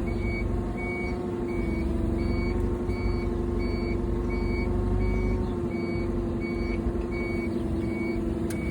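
A vehicle running steadily with a constant hum as it tows a trolley, while its motion warning beeper sounds a short high beep about every 0.7 seconds.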